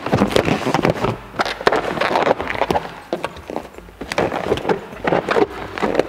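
Inflated latex balloons rubbing and squeaking against one another as a five-balloon cluster is handled and pressed down onto a stacked column, with irregular short knocks and rustles throughout.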